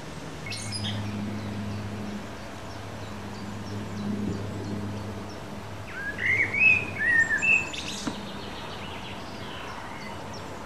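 Small birds chirping in garden trees. There is a short high call about half a second in, then a quick run of louder chirps between about six and eight seconds in, over a faint low steady hum.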